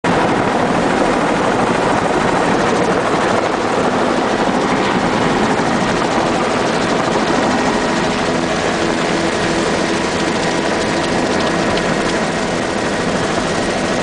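Helicopter engine and rotor running loud and steady, heard from a front seat with no door, through lift-off and low flight, with a faint steady whine on top.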